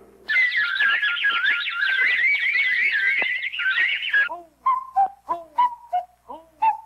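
Cartoon bird chatter made of whistles: a rapid, warbling twitter of many high chirps for about four seconds. Then comes a string of short whistled notes, each sliding down in pitch, about two a second.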